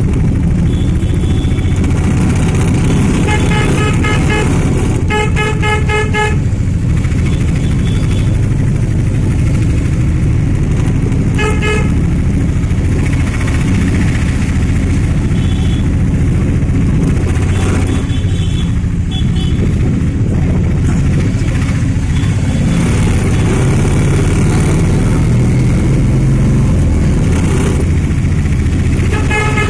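A motor vehicle's engine runs steadily while driving, heard from inside the cab. Its horn is tooted over and over in short runs of quick beeps, about three and five seconds in, again around eleven and seventeen seconds, and once more near the end.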